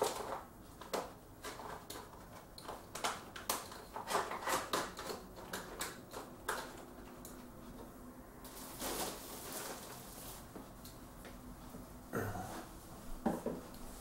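Hands handling small objects at close range: an irregular run of light clicks, taps and rustles, at times several a second.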